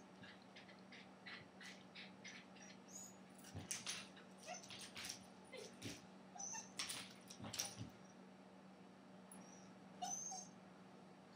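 Dachshund puppy at a plastic baby gate, its claws ticking and scrabbling against the gate in a run of quick faint clicks as it tries to climb out, with a few short, faint whimpers.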